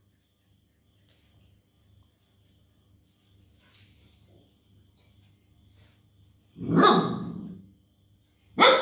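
A dog barks twice near the end: a longer bark, then a short sharp one.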